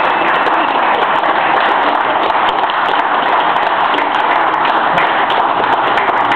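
Audience applauding steadily: a dense run of hand claps.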